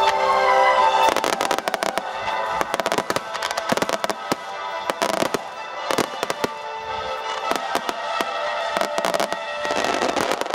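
Aerial fireworks shells bursting with rapid, dense crackling over a music soundtrack. Music alone for about the first second, then the cracks crowd in, with another thick flurry near the end.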